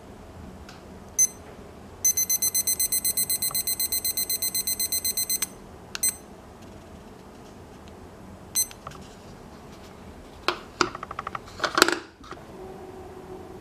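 Digital kitchen timer beeping as its buttons are pressed: a single beep, then a fast run of about seven beeps a second while a button is held to count the time up to 30 minutes, then two more single beeps. A few clicks and knocks near the end.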